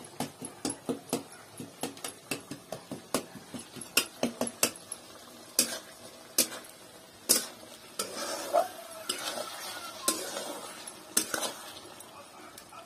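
Metal spatula scraping and clinking against a steel kadai as small fish are stirred in a frying spiced gravy over a wood fire. The strokes come quickly at first, about four a second, then slow to a few single scrapes, with a soft sizzle from the pan.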